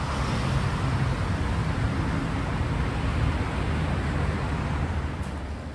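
Steady rumble and hiss of road traffic, easing off slightly near the end.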